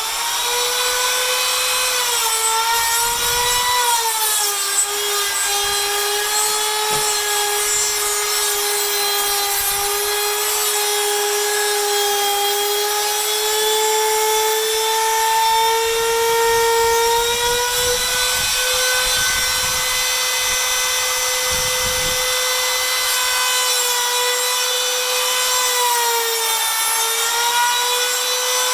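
Katsu router with a slot cutter running at full speed and cutting a slot in timber for a draught-proofing strip, a steady high whine. Its pitch sags slightly as the cutter takes load, about four seconds in and again near the end.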